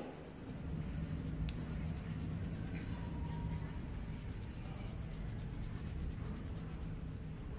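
Coloured pencil scratching across paper in quick back-and-forth shading strokes, over a low steady hum.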